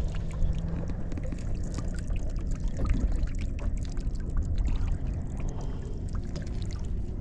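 Water trickling and splashing, with small clicks, over a steady low rumble.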